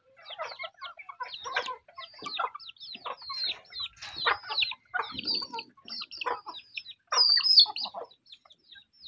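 A flock of chickens and young chicks clucking and peeping, a dense run of short high calls that fall in pitch over lower clucks, with one louder shrill call near the end.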